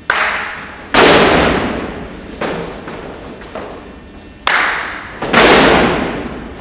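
A group of sabre fencers stamping their feet together on the hall floor in a footwork drill: six heavy thuds, the loudest about a second in and near the end, each leaving a long echo in the large hall.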